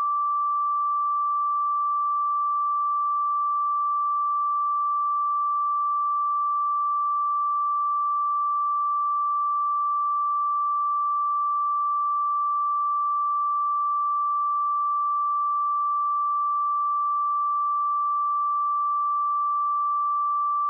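A pure sine-wave test tone at 1168 Hz, held at one steady pitch and level.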